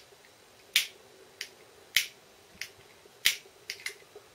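A lighter being clicked repeatedly: three sharp clicks, each followed about half a second later by a softer one, as it is fired to shrink heat-shrink tubing onto a treble hook.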